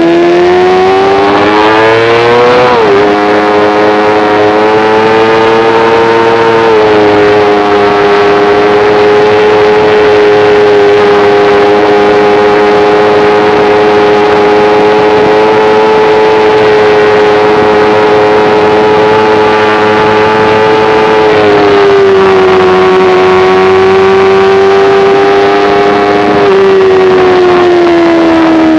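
Sport motorcycle engine heard from on board over wind rush. The revs climb for about three seconds, drop sharply with a gear change, then hold a nearly steady pitch for a long stretch. The pitch steps down twice in the last several seconds as the bike slows.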